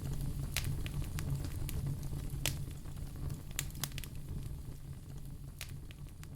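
Wood logs burning in a fireplace: a low steady rumble of the flames with sharp crackles and pops every second or so, slowly growing quieter.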